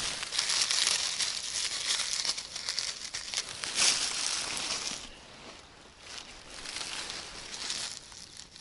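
Dry fallen leaves crackling and rustling as a hand pushes through the leaf litter, busiest for the first five seconds and quieter after.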